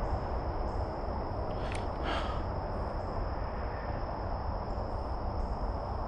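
Insects trilling steadily on one high note, over a low steady rumble of outdoor noise, with two short sharp sounds about two seconds in.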